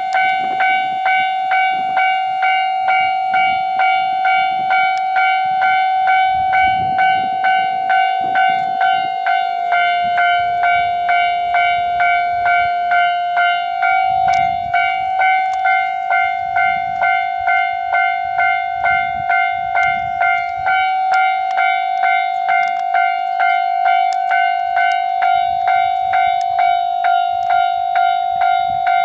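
Japanese level-crossing warning bell ringing in a steady, quick ding-ding rhythm. Beneath it, the low rumble of a passing former Tokyu 7700-series electric train comes and goes.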